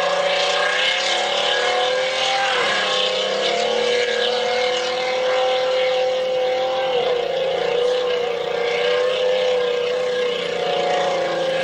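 Tank engine running hard as the tracked tank drives across a dirt arena, with the tracks rattling over the ground. The engine note dips briefly about two and a half seconds in and again about seven seconds in as the revs change.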